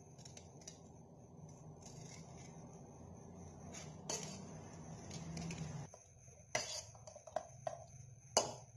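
Stainless-steel potato masher mashing boiled potatoes in a steel bowl, its perforated metal plate knocking and clinking against the bowl: one knock about four seconds in, then a string of sharper irregular knocks in the last few seconds.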